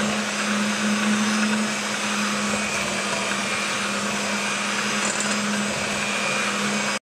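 Electric hand mixer running steadily at speed, its beaters creaming butter for buttercream, with a constant motor hum.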